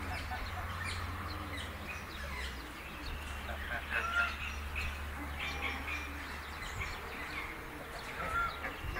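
Small birds chirping in many quick short calls, with a low call repeated roughly once a second, over a steady low rumble.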